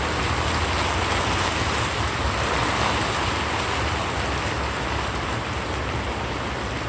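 Steady outdoor background noise: an even rushing hiss with a low rumble underneath, unchanging throughout.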